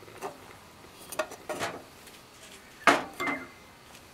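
Several short clinks and knocks of metal hardware and tools against a cut stone block, irregularly spaced, the loudest about three seconds in.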